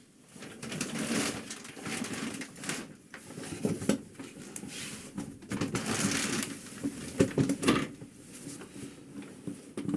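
Office chair being handled and adjusted after its seat has sunk all the way down: repeated rustling, scraping and creaking, with a few sharp clicks around the middle.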